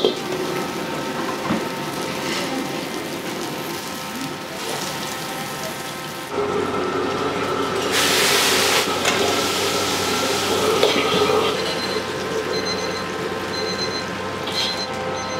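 Commercial Chinese kitchen noise: a steady roar of wok burners and extraction with water running from a tap, growing louder about six seconds in, with a brief hiss about eight seconds in.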